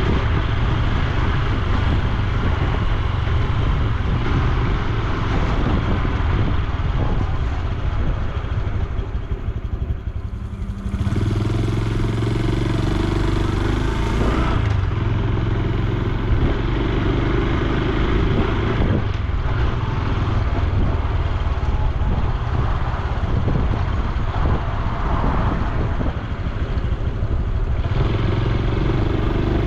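Honda Super Cub C125's air-cooled single-cylinder engine and exhaust running on the move. It dips briefly about ten seconds in, then settles to a steady even note for a few seconds before picking up again.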